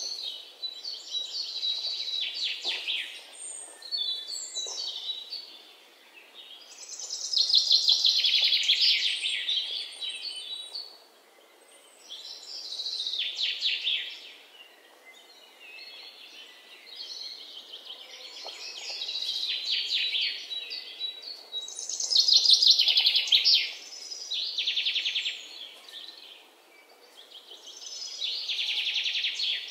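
Curry leaves, garlic and dried red chillies crackling and spluttering in hot oil in an aluminium pot as they are stirred. The crackle comes in bursts a few seconds long, with quieter gaps between.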